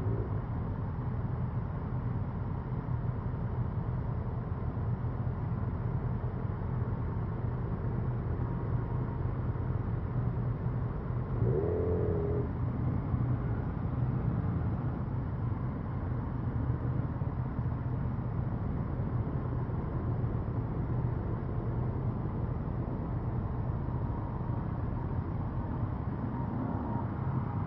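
Motorcycle engines running at low speed in a slow group ride on a wet road, a steady low rumble with road noise. A brief higher-pitched wavering sound stands out about halfway through.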